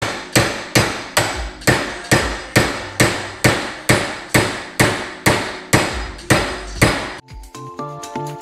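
Steady hammer blows at a bench vise, about two and a half a second, striking half-inch round bar stock to bend it into an exhaust hanger. Near the end the blows stop and electronic music starts.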